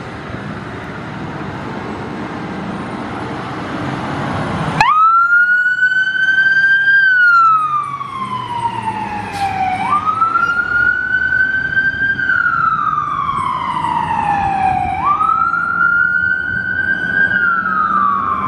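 Fire engine's Whelen Cencom Sapphire electronic siren switching on about five seconds in and sounding a wail. Each of its three cycles rises quickly, holds, then falls slowly, over the truck's low engine noise. Before the siren starts there is only engine and road noise, slowly getting louder.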